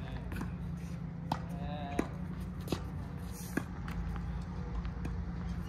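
Tennis ball struck back and forth with racquets in a net volley exchange: about four sharp hits, each under a second apart, then a pause.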